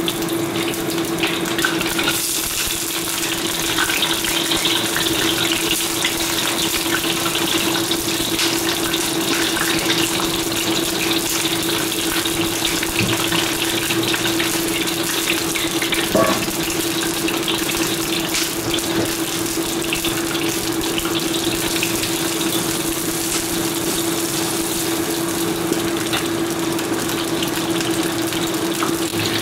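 Salt-water-soaked eggplant pieces frying in hot oil in a wok, a steady dense sizzle full of small crackles and pops, with a steady hum underneath.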